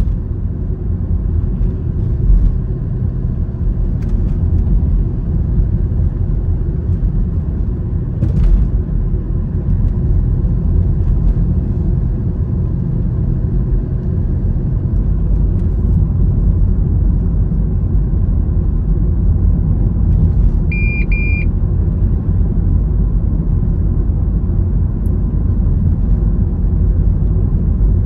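Steady low rumble of road and engine noise from a vehicle on the move. About three-quarters of the way through, a short high electronic beep sounds once.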